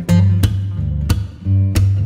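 Background music led by guitar over a bass line, with a steady beat of sharp strikes about every two thirds of a second.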